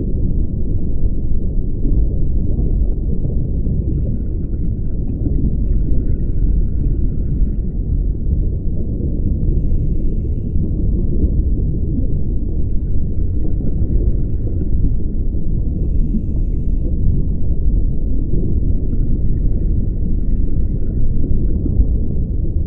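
Underwater sound of a scuba diver breathing through a regulator over a loud steady low rumble of water noise on the camera housing. A longer bubbling rush of exhaled air comes three times, with short hissing inhales between them, about one breath every six seconds.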